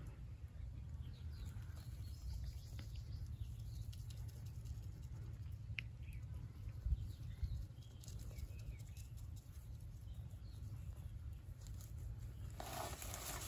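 Quiet outdoor ambience: a steady low rumble with faint bird chirps now and then and light rustling as a young vervet monkey steps through the grass, and a single click about six seconds in.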